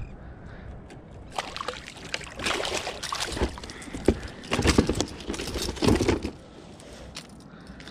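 Irregular splashing, rustling and knocks as a freshly caught snapper and the lure hooked in it are handled in the lap of a sit-on-top plastic kayak, loudest in the middle and settling down after about six seconds.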